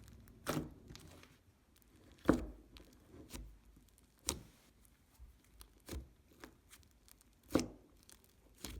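Slime being squished and stretched by hand, giving irregular popping and crackling sounds, about eight separate pops, the loudest a little over two seconds in and again near the end.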